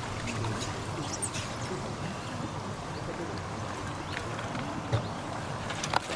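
Outdoor lakeside ambience: a steady rush of wind and lapping water, with a couple of sharp clicks near the end.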